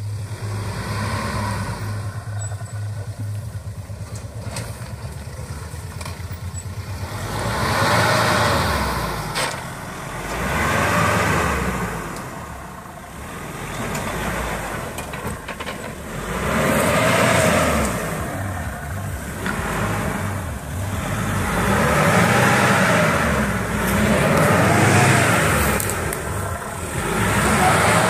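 Mahindra Scorpio's engine labouring under load as the SUV climbs out of a dirt trench. It runs fairly steadily at first, then from about seven seconds in revs up and falls back in repeated surges, roughly every three seconds.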